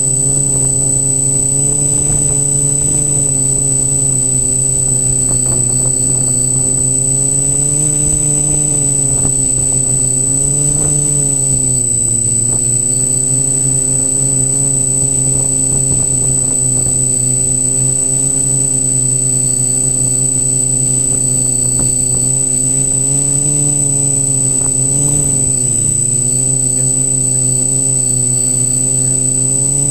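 Multirotor drone's electric motors and propellers buzzing steadily in a hover, heard up close from a camera mounted on its frame. The motors slow briefly twice, about twelve and twenty-six seconds in, and a steady high-pitched whine sits above the buzz.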